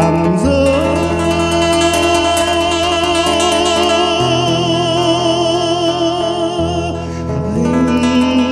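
A man singing a Vietnamese song over guitar accompaniment. He holds one long note with vibrato for about six seconds, then starts another held note near the end.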